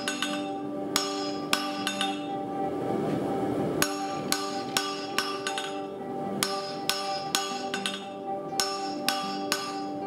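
Forging hammer striking a 3/8-inch square steel bar on an anvil: ringing metal-on-metal blows about two a second, in runs of three to five with short pauses between.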